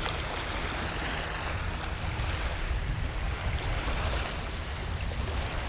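Small waves washing and fizzing over a shallow rock shelf, with wind rumbling on the microphone.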